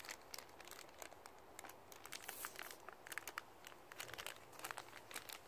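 Faint, scattered crinkling of a clear plastic bag holding Beyblade parts as it is handled and opened.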